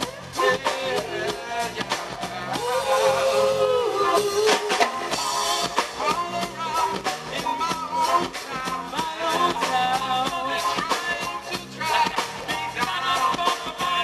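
Live reggae band playing: drum kit keeping a steady beat under electric guitar and keyboard, with a singer's voice over the top.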